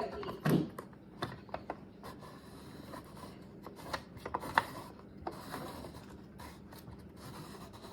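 Scattered clicks and light knocks from hands working the parts of a cordless chainsaw, with a duller knock about half a second in and a sharper click a little past the middle.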